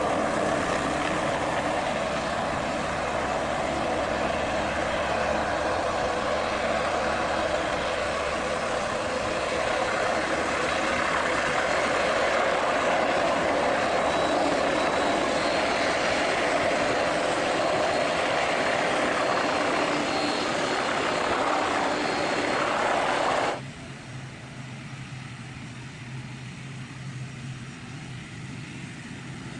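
Police MBB Bo 105 helicopter hovering low over the runway: a loud, steady rush of turbine and rotor noise. About 23 seconds in it cuts abruptly to the quieter, steady low drone of an ATR 72-600's Pratt & Whitney PW127 turboprops as the airliner rolls slowly along the runway.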